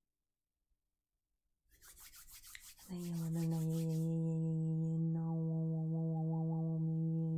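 Palms rubbed briskly together for about two seconds. About three seconds in, a steady low drone with a stack of overtones slides up into pitch and holds.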